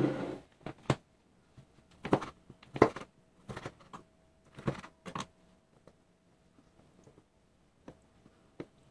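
Kitchen handling sounds: a run of separate knocks and taps as a bowl and a plastic cutting board are set down on a table and a knife cuts lime peel on the board, thinning to a few faint taps near the end.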